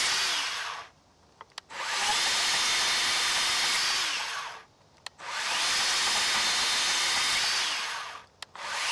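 RIDGID 18V cordless band saw cutting a pine board. It runs in three bursts of two to three seconds, winding down twice in between, with short quiet gaps that hold a few small clicks.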